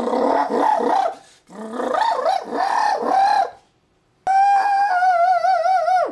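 A man's vocal imitation of a trombone: sliding, wailing notes in two phrases with brief breaks, then about four seconds in a held note with a wobbling vibrato that cuts off suddenly.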